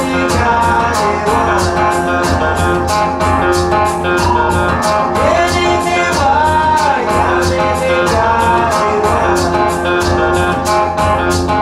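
Recorded music played back over hi-fi loudspeakers driven by a Mola Mola Kula switching integrated amplifier: a song with a female lead vocal and guitar over a steady shaker rhythm of about three or four ticks a second.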